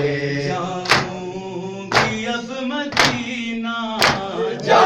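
Group of men chanting a noha with long held notes, while the mourners beat their chests (matam) in unison: a sharp slap about once a second, in time with the chant.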